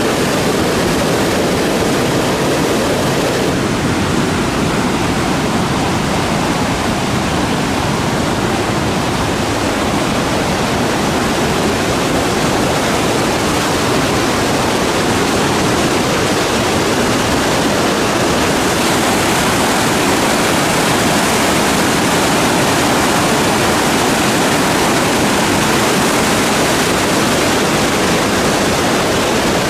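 Whitewater rapids of a mountain river rushing below a footbridge: a loud, steady rush of water that turns hissier a little past halfway.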